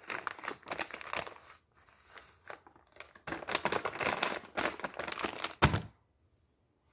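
Soft plastic pouch of wood-furniture wipes crinkling in the hands as a wipe is pulled out, in two spells of rustling, with a single thump near the end.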